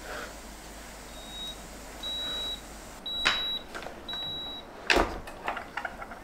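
Cuisinart waffle maker beeping its ready signal: four short, high, steady beeps about a second apart. Then come clacks and a loud knock as its hinged lid is opened and handled.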